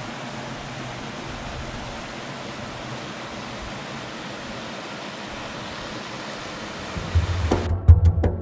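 Mountain stream rushing over small rocky cascades, a steady even rush. About seven seconds in, music with a drum beat comes in and takes over.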